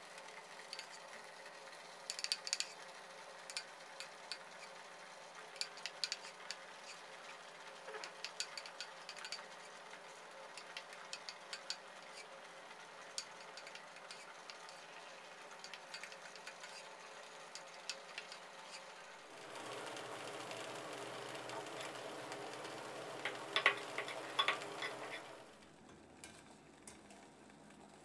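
Faint kitchen sounds of pork balls being made: scattered light clicks and taps of a metal bowl and utensils as pork paste is dropped into a pot of hot water. About two-thirds of the way in comes a steadier hiss from the pot of cooking water for about six seconds, which then cuts off.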